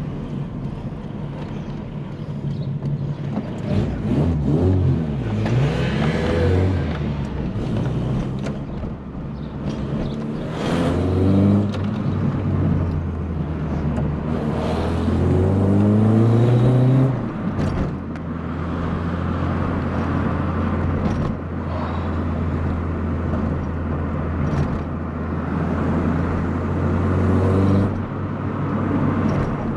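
VW Polo coupe's engine, freshly rebuilt with a new head gasket, cam belt and water pump, accelerating through the gears: the revs climb and drop at each shift several times, then settle into a steady cruise. It is running cleanly and pulling well.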